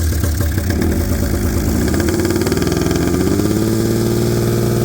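Small gasoline engine running; about two seconds in its speed climbs, then holds steady at the higher pitch.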